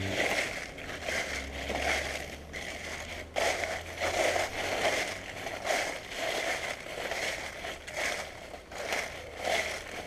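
Footsteps crunching through a thick layer of dry fallen leaves, a crackling crunch with each step at an even walking pace.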